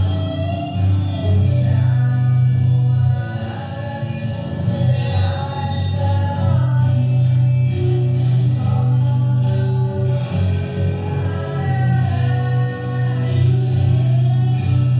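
Live performance of a pop/rock song: a voice singing the melody over a band with a prominent, steady bass line.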